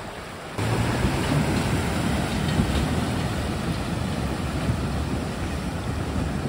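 Maruti Gypsy 4x4 wading through a shallow river: water rushing and splashing against its wheels and body over the running engine, with the river's own flow beneath. It gets sharply louder about half a second in and stays loud.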